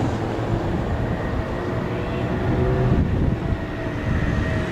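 Road traffic running along a town street: a steady low rumble of vehicle engines and tyres.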